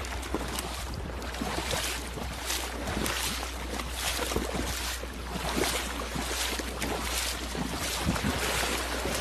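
Wind buffeting the microphone in irregular gusts over a steady low hum, with water-like hiss.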